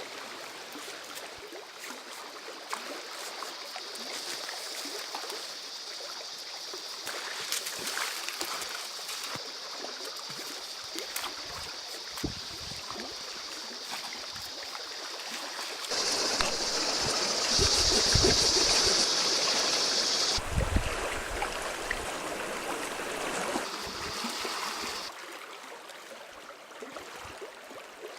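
Running river water, a steady rushing hiss. It grows louder a little past halfway, with some low thuds, then settles back near the end.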